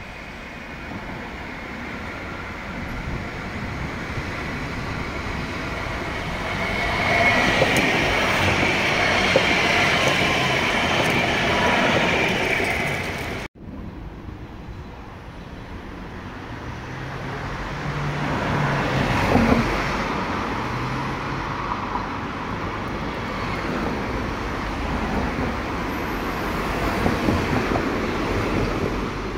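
Light-rail trams of the Cologne Stadtbahn running on street track, wheel and running noise swelling as they approach, with a high ringing squeal at the loudest point about halfway through. Then the sound cuts off suddenly and another tram draws closer, with a low droning hum that steps up and down in pitch.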